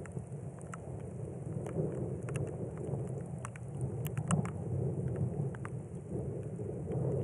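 Desert rainstorm: rain falling, with many scattered sharp ticks of close raindrops, over a low, continuous rumble of distant thunder.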